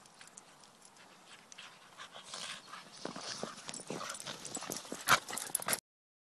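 Dogs scuffling about in snow close by: a quick run of crunching, clicking noises that builds from about two seconds in, with one loud sharp sound about five seconds in. The sound cuts off abruptly just before the end.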